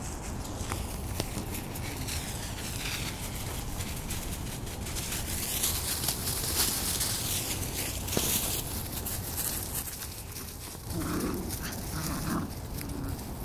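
Five-week-old doodle puppies scampering through dry fallen leaves, a steady crunchy rustling. A few short puppy barks come near the end.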